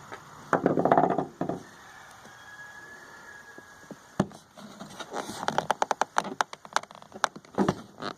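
Clicks and rattles of hand tool work on a plastic air box while the T20 Torx screws holding the mass airflow sensor are taken out. There is a loud crackly burst early, a single sharp click about four seconds in, then a run of rapid, uneven clicks.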